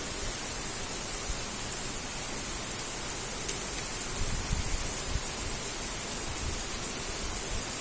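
Heavy rain pouring down in a steady hiss, with gusts of wind buffeting the microphone now and then.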